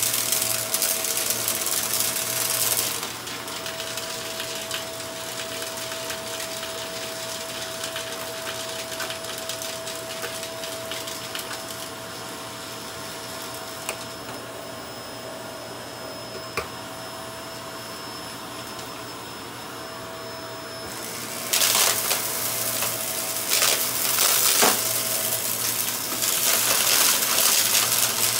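Upright vacuum cleaner running steadily with a held whine. Loud gritty rattling comes in for the first few seconds and again from about three-quarters of the way in, as it sucks up dirt and small debris from the carpet.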